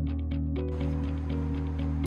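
Background music: steady instrumental chords with a light, regular ticking beat.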